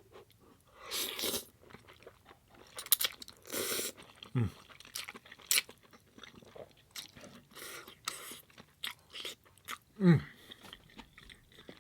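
Close-miked chewing with crisp crunches and wet mouth clicks: spaghetti and cheesy garlic bread being eaten. Two short falling hums come about four seconds in and near the end.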